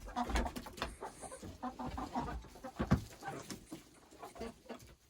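Young hens clucking in many short, scattered calls, with a single thump about three seconds in.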